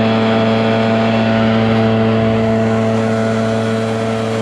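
Brush Bandit 280XP woodchipper's engine running at a steady speed, a constant droning hum that holds one pitch.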